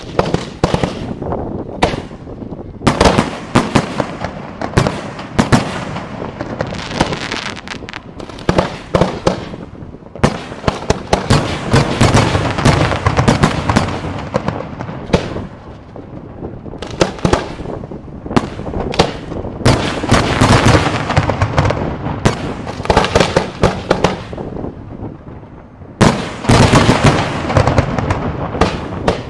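Aerial fireworks display: a rapid, near-continuous barrage of shell bursts and salutes, sharp bangs crowding over one another with crackle between them. It starts abruptly, slackens briefly about halfway through, and surges again near the end.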